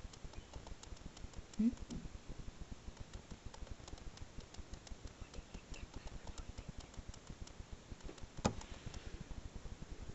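Faint crackling handling noise from a handheld camera, with a short low murmur near two seconds in and one sharp click about eight and a half seconds in.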